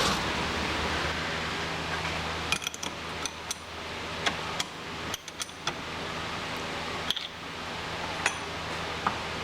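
A run of light, sharp metallic clinks and taps, clustered in the middle with a few more near the end, as small steel tools or parts are handled at a metal lathe, over a low steady machine-shop hum.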